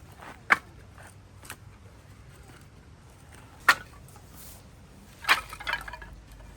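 Firewood being broken or split: three sharp wooden cracks a few seconds apart, the last followed by a brief splintering crackle.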